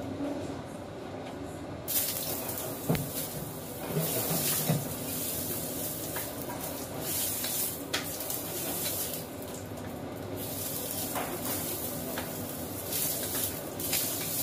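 Vegetable pieces dropped into a hot stainless steel frying pan start sizzling suddenly about two seconds in, and keep sizzling as they are stirred, with light clicks and scrapes from a wooden spatula against the pan.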